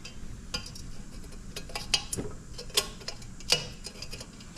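Irregular metallic clicks and scrapes of a hand tool working inside a freshly drilled hole in stainless steel, clearing out leftover metal chips and burrs, with a few louder clinks past the middle.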